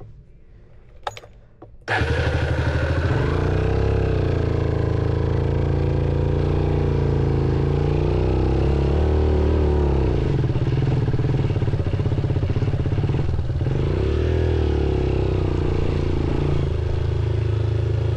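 Motorcycle engine comes in suddenly about two seconds in, after a couple of clicks, and runs steadily at a low, even pace with a few brief, gentle rises in pitch.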